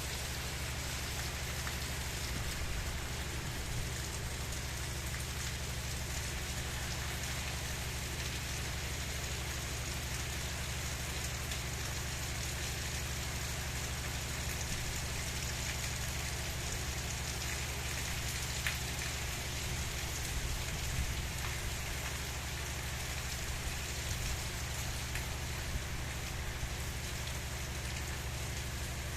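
Gentle rain falling steadily, with a few louder individual drops about two-thirds of the way through.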